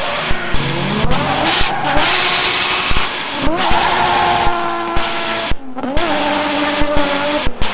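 Car engine sound effects revving up in pitch three times, with abrupt cuts between them and short knocks throughout. A rushing hiss comes in about two seconds in.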